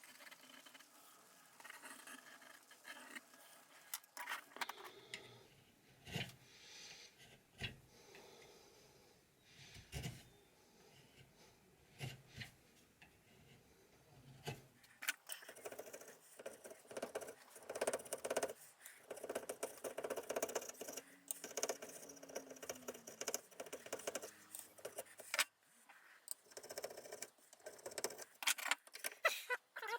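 Faint, intermittent scraping, clicks and clinks of metal being handled and worked by hand.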